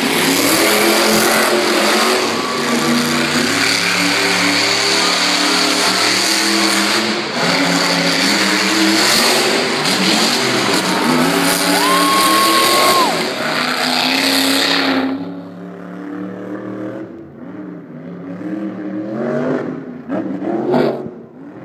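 Monster truck engine revving hard, its pitch rising and falling as the throttle is worked, then cutting off suddenly about fifteen seconds in. Quieter revs follow near the end.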